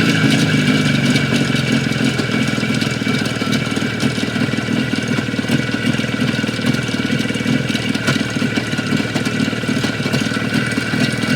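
Izh Jupiter 5 two-stroke twin-cylinder motorcycle engine running steadily at idle after settling from slightly higher revs in the first moments. The engine has a knock.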